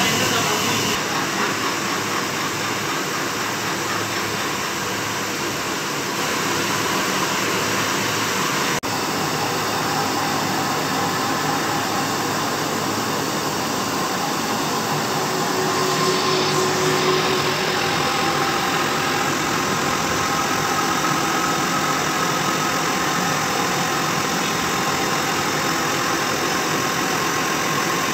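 Lathe spinning a flywheel while a belt-driven grinding spindle on the tool post grinds its face smooth: a steady mechanical whir and hiss, with faint whining tones joining about halfway through.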